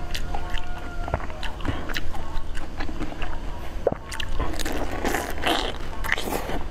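Close-miked biting and chewing of a dessert ball coated in sliced almonds, with many small sharp crackles and mouth sounds; the crunching is densest in the second half.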